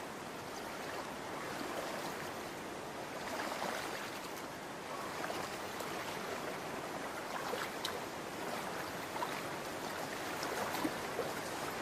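Shallow stream water running steadily.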